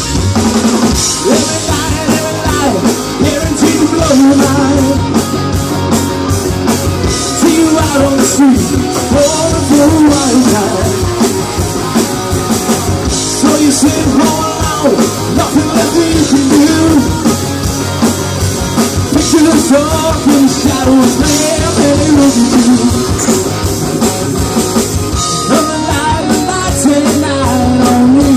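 Live rock band playing a song: electric guitars, bass guitar and a drum kit with cymbals, and a man singing lead.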